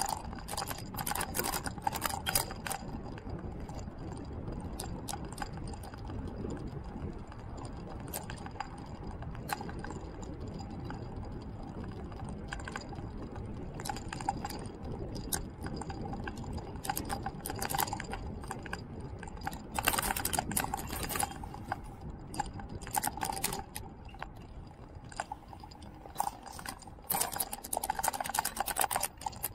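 Ride noise from a camera moving along a road: a steady low rumble with irregular clicking and crackling, heavier about twenty seconds in and again near the end, under a faint steady whine.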